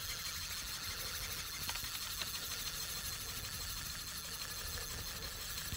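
Steady open-air hiss of wind and water with a low rumble underneath, and two faint ticks a little after a second and a half in.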